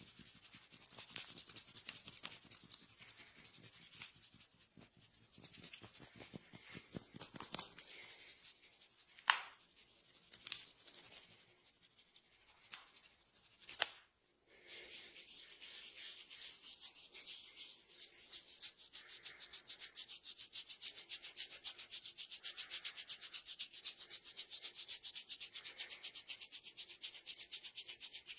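Hands rubbing briskly over hair and scalp in a fast, even rhythm, a dry scratchy rubbing. A few sharp clicks come in the first half, and the sound cuts out briefly about halfway through.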